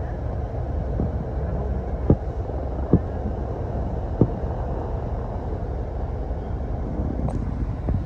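Steady low rumble of a vehicle on the move, with three short sharp clicks about two, three and four seconds in.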